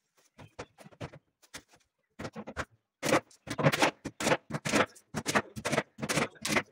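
Claw hammer striking along the edge of a wooden cabinet top, driving small nails. Quiet taps at first, then a run of sharp, loud blows about three a second from about three seconds in.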